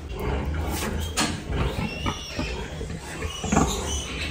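Piglets squealing in short high cries, mixed with low pig grunts; the loudest grunt comes about three and a half seconds in.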